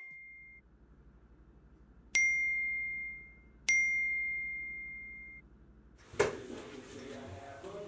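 Two single-note smartphone message-notification chimes about a second and a half apart, each ringing out and fading. From about six seconds in, a knock, then rustling room noise.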